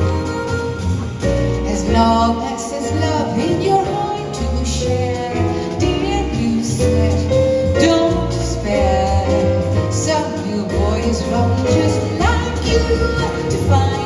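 Live jazz: a woman singing with chromatic harmonica, piano, double bass and drums, in a jazz waltz.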